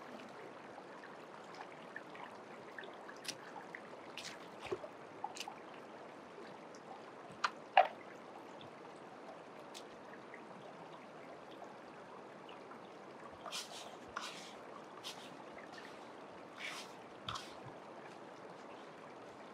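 Shallow rocky stream running steadily, its water trickling over the stones and through a sluice box set in the current. Scattered short clicks and knocks from handling among the stones, the loudest a sharp knock about eight seconds in.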